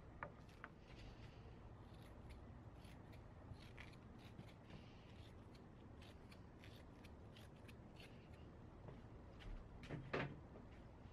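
Scissors snipping through thin fiberglass cloth in a run of faint, quick cuts, with a louder knock near the end.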